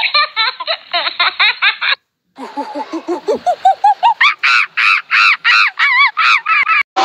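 Cartoonish laughter sound effect: two runs of quick, rhythmic 'ha-ha' syllables, broken by a short silence about two seconds in. The second run starts low and jumps to a higher pitch partway through.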